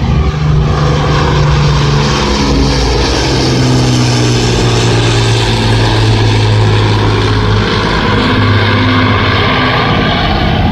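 Avro Lancaster's four Rolls-Royce Merlin piston engines droning loudly in a display flypast, the pitch of the drone falling about two seconds in as the bomber passes.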